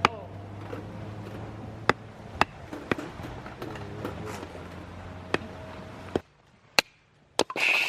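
Firewood being split: a series of sharp, irregular wooden chops and knocks, about eight strikes, the last ones near the end coming close together. A steady low hum underneath stops about six seconds in.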